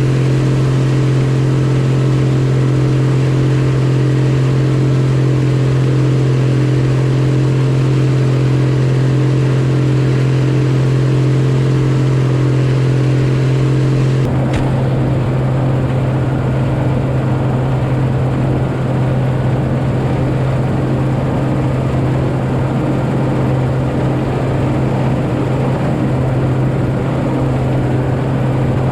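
Combine harvester running steadily while cutting wheat: a constant loud engine and machinery hum whose character changes abruptly about halfway through.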